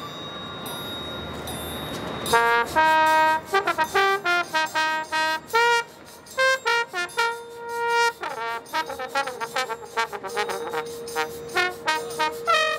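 Marching band trombone solo. From about two seconds in, a single trombone plays a quick line of short, detached notes, following a swelling wash of sound. In the second half a long note is held beneath the solo line.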